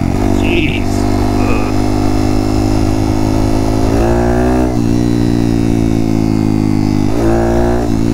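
Honda Monkey's 181cc big-bore single-cylinder four-stroke engine running steadily while ridden, with two brief rises in revs, about four and seven seconds in, each cut off suddenly.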